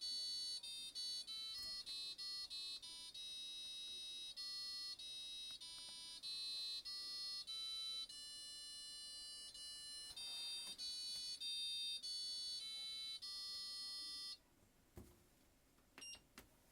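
Fisher & Paykel washing machine's electronic beeper playing a national anthem as a tune of plain beeping notes, which stops about 14 seconds in. A click and a short beep follow near the end.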